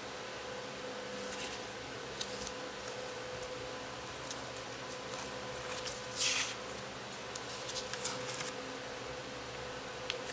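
A sheet of paper being folded and creased by hand: scattered short rustles and crinkles, the loudest a brief swish about six seconds in, over a steady hum.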